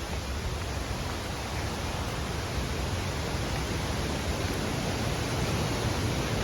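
Steady rushing roar of a waterfall, growing slightly louder.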